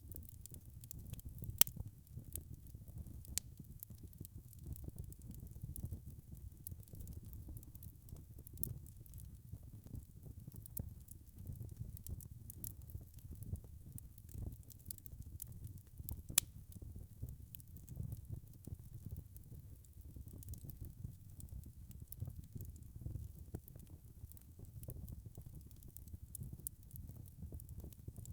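Wood fire in a fireplace: logs crackling steadily over a low rumble of flame, with frequent small crackles and two sharper, louder pops, one about a second and a half in and one about halfway through.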